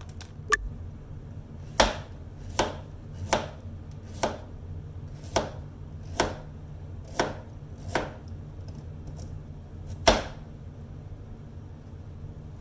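Knife chopping on a cutting board: about ten single, unhurried strokes, roughly one a second, the last one the loudest, over a steady low hum.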